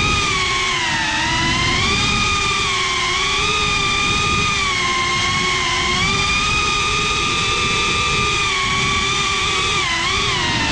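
FPV quadcopter's brushless motors and propellers whining, picked up by its onboard camera; the pitch rises and falls with the throttle, dipping about a second in and wobbling near the end, over a low rumble of wind on the microphone.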